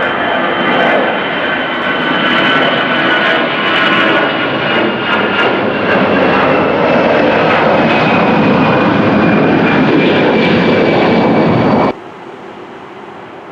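Airliner jet engines, loud, with a high whine that falls slowly in pitch over a dense roar. The sound cuts off abruptly about twelve seconds in, leaving a much quieter steady background.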